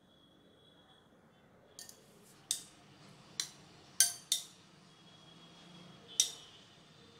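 Dishware clinking: a serving utensil knocks against a ceramic plate and glass dish as pieces of chicken tikka are served. About six sharp, ringing clinks start about two seconds in, the loudest about four and six seconds in.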